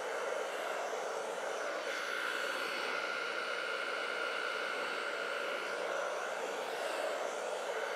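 Blow dryer running steadily, with a higher whine in its sound for about four seconds in the middle.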